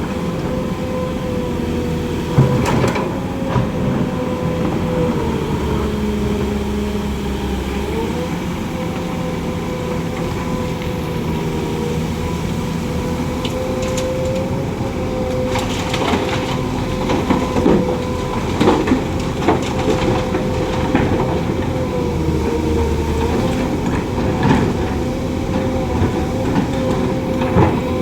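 Loaded dump truck driving, its drivetrain running with a steady whine that dips and rises slightly in pitch over a low rumble. The body knocks and rattles irregularly, more often in the second half.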